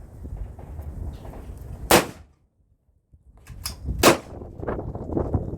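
Two pistol shots from a Ruger 1911 in .45, about two seconds apart.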